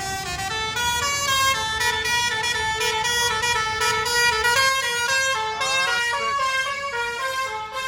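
Tour bus 'basuri' multi-trumpet air horn playing a telolet tune: a quick run of loud, changing notes with a low rumble underneath.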